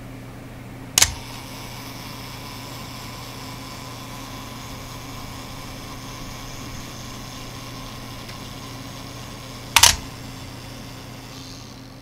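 Nikon FM2's mechanical self-timer: a click as it is set off, a faint steady whirr of the clockwork escapement for about nine seconds, then the louder clack of the mirror and shutter firing.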